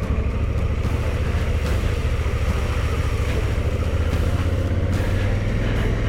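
Adventure motorcycle's engine running steadily at low trail speed, with tyres rolling through puddles and mud.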